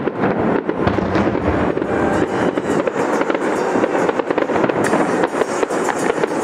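Aerial fireworks display: shells bursting one after another in a dense, continuous run of bangs and crackles.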